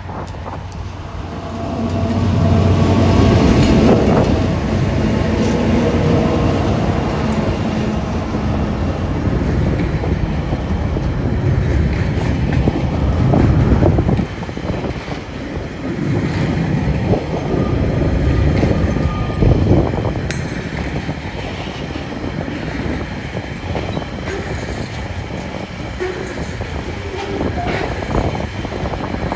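Two TasRail TR-class diesel-electric locomotives passing at about 30 km/h, their engines loudest a few seconds in. They are followed by a long string of container flat wagons rolling past, a steady rumble with the clickety-clack of wheels over the rail joints.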